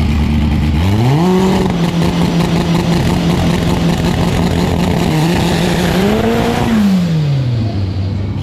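Volkswagen Gol drag car's engine idling, then revved up about a second in and held steady at raised revs for about six seconds, before dropping back toward idle near the end.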